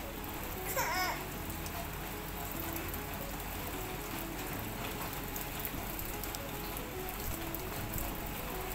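Steady rain, an even hiss throughout. A brief wavering high call cuts through it a little before a second in.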